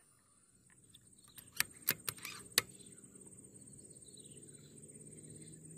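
Five sharp clicks over about a second, starting about one and a half seconds in, from handling the scoped hunting rifle, followed by faint high chirping calls.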